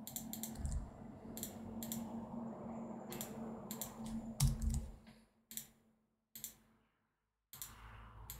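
Computer keyboard keystrokes and clicks, scattered and separate, about a dozen in all with short pauses between them, over a faint low steady hum.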